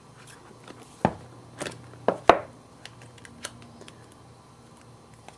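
Handling noise as a Zune HD media player is lifted out of its box tray: a few sharp clicks and scrapes, the loudest about two seconds in, then a few small ticks.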